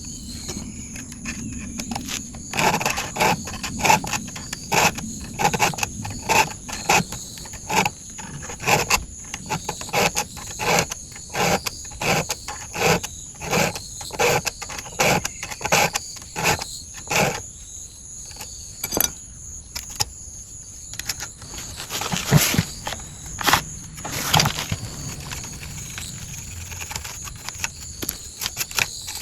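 Round chainsaw file rasping across the cutters of a chainsaw chain in steady strokes, a little under two a second, stopping around the middle and followed by two more strokes.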